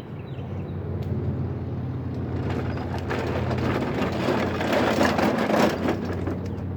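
A passing road vehicle: its noise swells to a peak about five seconds in and then fades, over a steady low hum.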